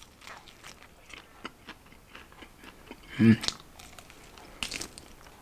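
Crunching and chewing of a crispy breaded fried chicken wing being bitten into and eaten: a string of small crackling crunches, with a brief hum from the eater about three seconds in.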